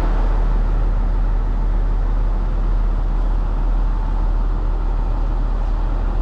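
Steady wind and road noise on the microphone while travelling along a road: a heavy, even rumble with a hiss over it, starting abruptly and holding level.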